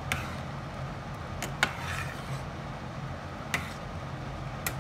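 Metal ladle stirring curry in a stainless steel pot, knocking sharply against the pot four times, over a steady low hum.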